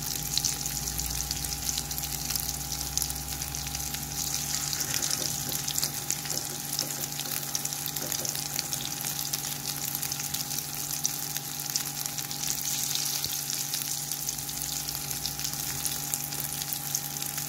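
Oil sizzling and crackling steadily in a wok as a beaten-egg and terubuk (sugarcane flower) mixture fries, stirred with a spatula.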